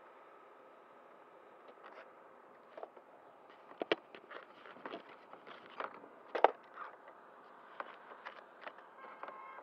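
Handling noise close to the camera microphone: scattered clicks, taps and scrapes as the RC plane and camera are worked on by hand. The sharpest knocks come a little before four seconds in and around six and a half seconds.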